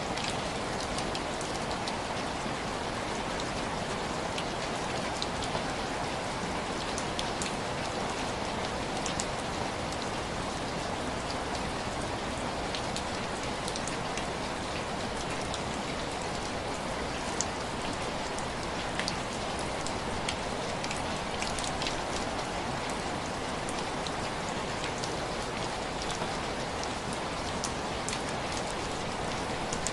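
Steady rain falling, an even hiss with many scattered single drops ticking through it.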